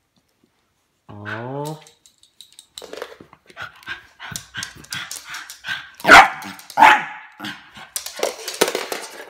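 Puppy barking and yapping at a lighter on the floor: a drawn-out pitched growl about a second in, then a run of short yaps, with two loud barks about six and seven seconds in and scuffling near the end.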